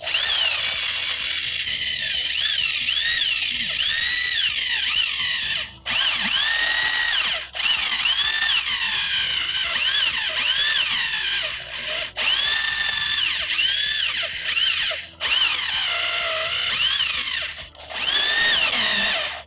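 Cordless drill driving a Lug Ripper extractor into a lug nut that spins on its stud. The motor runs hard under load with a wavering high whine, and stops briefly about five times as the trigger is let off and squeezed again.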